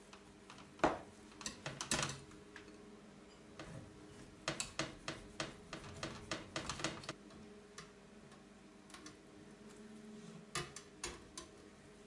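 A knife blade tapping and scraping against the inside of a stainless steel adjustable cake ring as it is run around the edges of a baked sponge cake, making a run of sharp, irregular clicks. A few more clicks come near the end.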